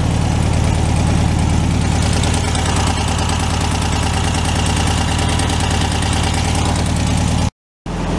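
1964 VW Beetle's air-cooled 1500cc flat-four engine idling steadily, with a brief break in the sound near the end.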